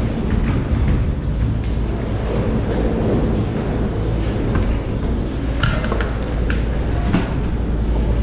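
Leitner detachable six-seat chairlift machinery running: a steady mechanical rumble with a few sharp metallic clanks about two-thirds of the way in.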